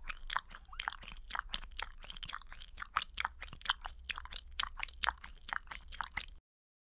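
Chewing sound: a quick run of crunches, several a second, that cuts off suddenly about a second before the end.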